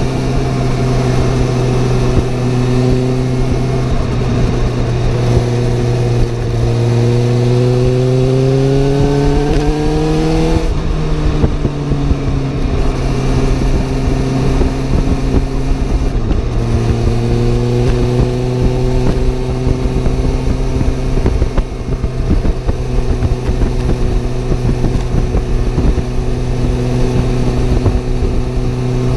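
Suzuki GSR750's inline-four engine and exhaust running at riding speed, with wind noise. About six seconds in the revs climb for several seconds, then drop sharply, as at a gear change or easing off the throttle. After a brief dip a few seconds later the engine settles back to a steady pitch.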